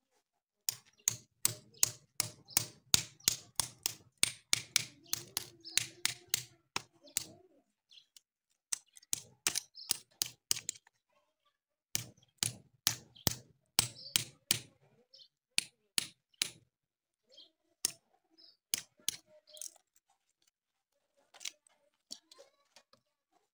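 Rapid sharp strokes, about four a second, in runs with short pauses and only a few near the end: a steel blade chopping and shaving the wooden block screwed to a cow's hoof.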